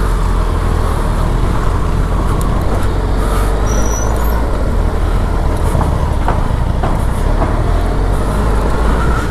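Suzuki Hayabusa's inline-four engine running as the bike pulls away and rolls slowly through traffic, a steady low drone heard from the rider's seat.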